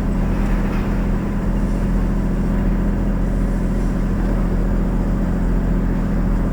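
Ford 460 V8 engine of a 1986 F-350 pickup running steadily at a low, even speed, a constant low drone with no revving.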